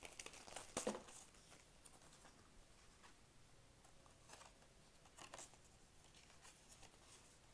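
A clear plastic sleeve rustling as a stiff card is slid out of it, loudest about a second in, followed by a few faint, brief paper rustles as the folded card is opened and handled.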